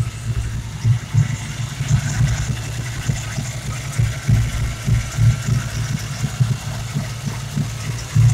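A 351 Windsor small-block Ford V8 idling unevenly, with a faint high whine over it. The owner takes this for a vacuum leak through a torn brake booster diaphragm.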